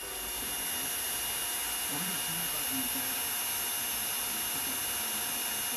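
Cordless drill motor running steadily at one speed, spinning a homemade micro gear pump underwater, with a thin high-pitched whine over the motor noise.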